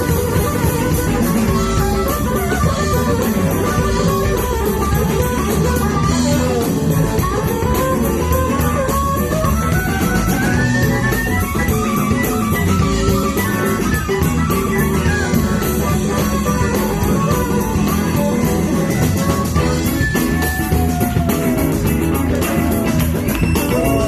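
Blues band playing an instrumental passage: a lead line with sliding, bent notes climbing and falling over guitar, bass guitar and drum kit.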